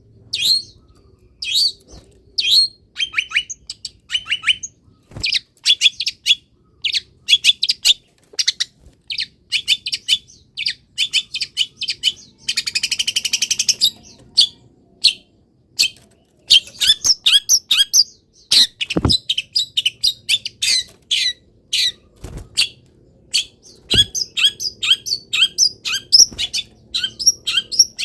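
Long-tailed shrike singing non-stop: a fast string of sharp chirps and whistled notes, packed with mimicked calls, with a harsh buzzing rattle about halfway through. A few dull thumps come in the second half.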